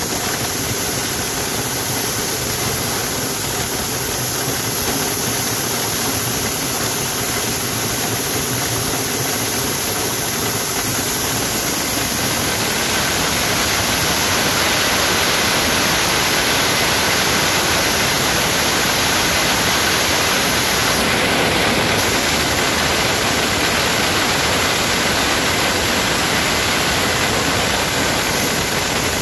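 Motorized corn sheller running steadily while shelling corn, a loud, even machine noise with shelled kernels spraying out of its chute.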